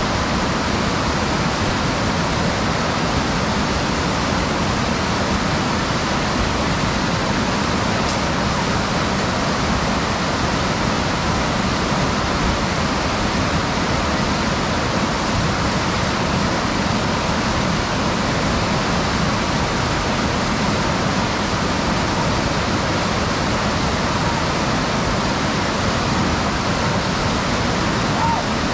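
Whitewater rapid rushing in a steady, even wash of churning water, the river running at about 943 cfs.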